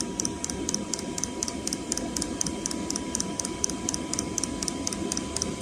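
Diesel air heater running: a steady whir of the fan and burner with a thin steady whine, and a rapid, even ticking about four to five times a second from the fuel dosing pump.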